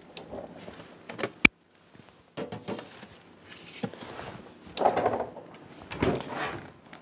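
Refrigerator door being opened and shut as a dessert is put inside. A sharp click comes about a second and a half in, then further knocks and thuds.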